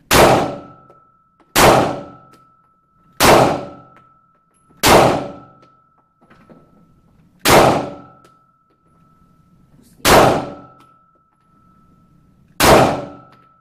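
Handgun fired seven times at an unhurried pace, one shot every one and a half to two and a half seconds, each report echoing in the indoor range. A faint steady high ringing tone lingers between the shots.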